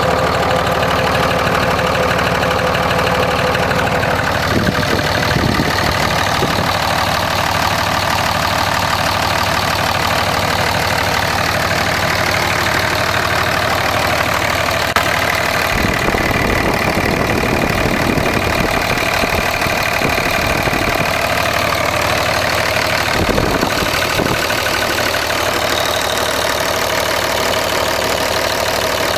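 2004.5 Ram 2500's 5.9-litre Cummins inline-six turbo diesel idling steadily with a repetitive knock, which the owner takes for a rod knock.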